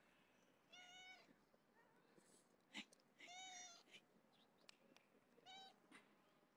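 A stray cat meowing three times, each meow short and about two seconds apart. A single sharp click falls between the first two meows.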